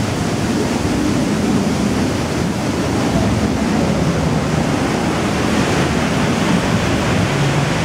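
Steady rushing and churning of water alongside the hull of the paddle steamer Stadt Rapperswil, its wash running close against a rock embankment, with a low hum beneath.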